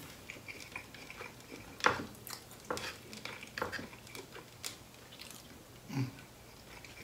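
A metal fork clicks and scrapes against a wooden plate as food is scooped up, with chewing sounds in between. The sharpest click comes about two seconds in.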